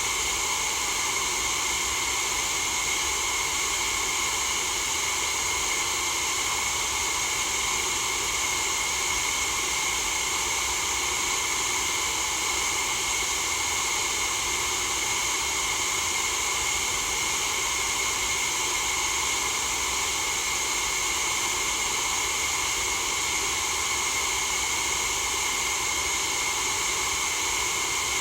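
A white-noise sound effect: a steady, unchanging hiss, brightest in the treble, with no rhythm or change in level.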